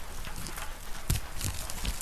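Wood-burning stove fire crackling, with a few sharp pops, over a steady hiss of rain.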